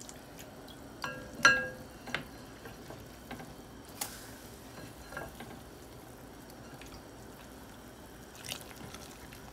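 Vegetable soup simmering in a stainless steel pot with a faint steady bubbling, while kale is pushed down and stirred in with a spatula. A metallic clink with a short ring comes about a second and a half in, among a few lighter knocks and taps, and a brief scrape of stirring comes near the end.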